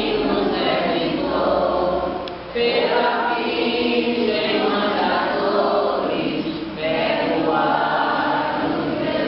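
A congregation of mixed voices singing a hymn together in long phrases, with short breaths between phrases about two and a half seconds in and near seven seconds.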